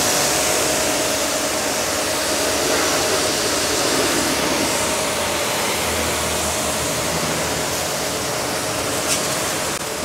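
Two high-pressure washer jets spraying steadily onto motorcycles and wet pavement: a loud, even hiss with a faint steady hum underneath.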